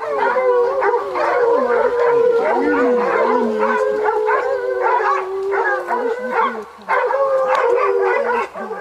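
A pack of hunting hounds baying and howling together, many voices overlapping over one long held note, with a brief lull about seven seconds in. It is the chorus of hounds that have their quarry, a leopard, bayed.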